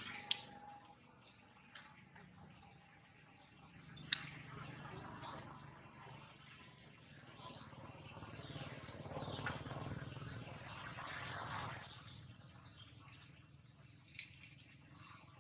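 A small bird chirping over and over, short high notes that dip and rise again, about one or two a second, with two sharp ticks among them.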